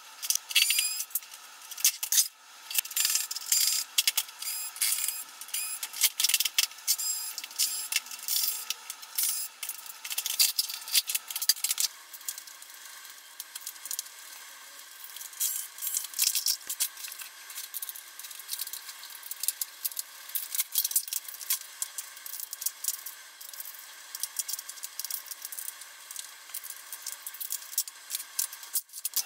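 Quick, irregular clicking and clattering of plastic housing parts, screws and screwdrivers as a Hoover FloorMate SpinScrub hard-floor cleaner is pried and pulled apart. The clatter is busiest in the first half and thins out a little after that.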